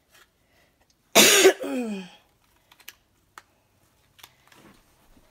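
A short, loud vocal outburst about a second in whose pitch falls away over half a second, followed by a few faint, light clicks.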